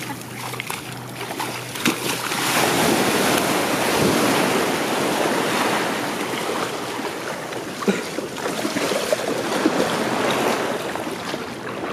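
Shallow water splashing and washing around as a landed shark is pushed back into the water and released, loudest a few seconds in. Small waves and wind run underneath throughout.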